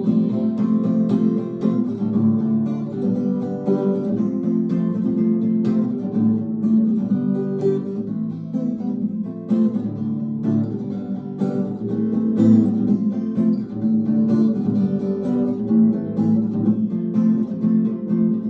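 Instrumental passage of a song: guitar strummed steadily in chords, with no singing.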